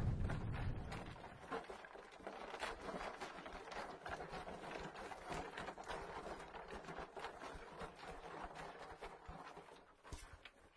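A low rumble from a transition effect dies away over the first second or so, leaving a faint, dense crackle of many small clicks that fades out near the end.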